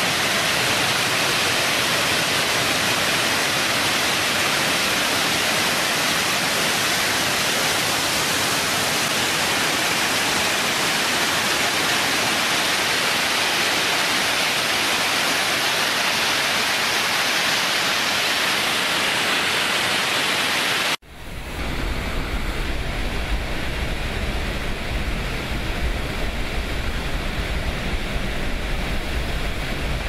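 Water jetting under pressure from a large dam outlet valve, a steady loud hiss. About two-thirds of the way through it cuts off abruptly and gives way to the deeper rumble of water pouring through a dam spillway.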